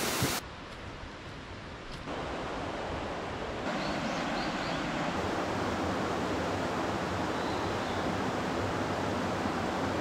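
Steady rushing of flowing mountain-stream water. Its level drops suddenly near the start and steps back up twice in the first few seconds.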